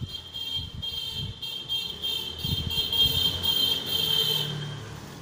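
A dog chewing grass up close, with irregular low crunching. Over it runs a loud, steady high-pitched whine that stops about four and a half seconds in.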